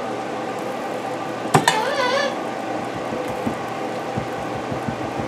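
A spoon tapping and knocking lightly in glass canning jars as thick cranberry conserve is spooned in and tamped down to remove air bubbles. There is a sharp click about one and a half seconds in, and a steady hum underneath.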